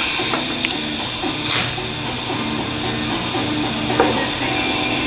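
Background music with a steady hiss underneath and a few short knocks.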